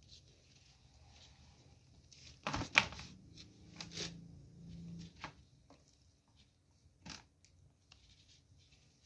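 Scratchy rustling and scattered sharp clicks, loudest as a quick cluster about two and a half seconds in, with a few lone clicks later.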